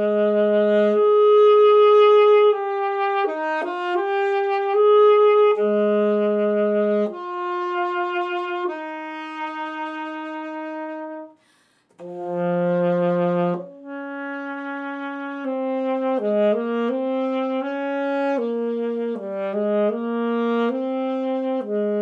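Solo alto saxophone playing a melody of held single notes in two phrases, with a brief break about halfway through.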